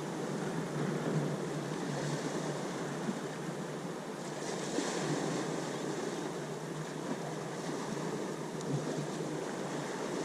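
Ocean waves washing ashore, a steady rushing noise with a hissing swell of surf about four to five seconds in.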